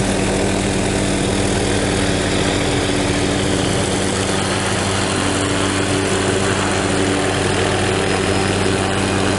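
MD 500-series light helicopter hovering and flying low, its turbine and rotor running with a steady drone and hum of several even tones.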